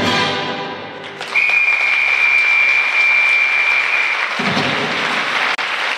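The orchestra's final chord dies away, then a theatre audience breaks into applause about a second in and keeps clapping. A steady high tone sounds over the applause for about three seconds.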